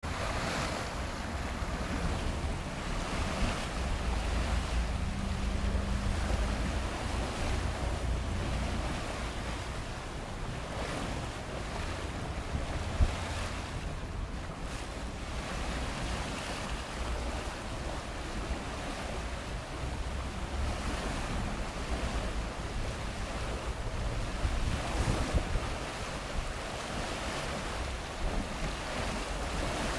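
Flood-swollen stream rushing and churning at high water, a steady broad rush, with wind gusting on the microphone as a low rumble. A single sharp knock about halfway through.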